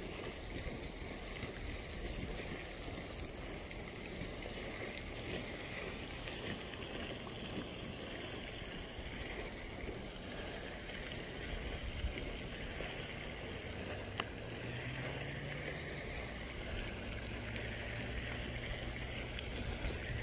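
Steady outdoor background noise, a hiss of wind and water. A faint low hum joins about two-thirds of the way through, with a couple of faint ticks.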